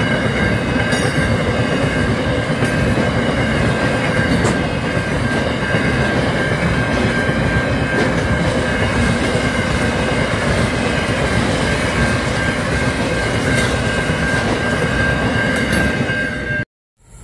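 Freight train of empty container flat wagons rolling past at speed: a continuous rumble and rattle of steel wheels on the rails, with a steady high tone held above it. The sound cuts off suddenly near the end.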